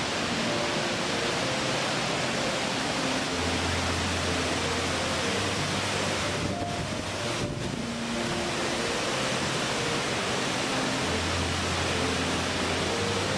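Steady rushing water noise, like a waterfall, with faint, slow held musical notes underneath. The rush dips briefly about halfway through.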